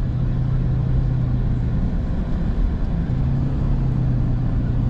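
Steady engine hum and road noise heard from inside a car's cabin while it drives along at an even pace.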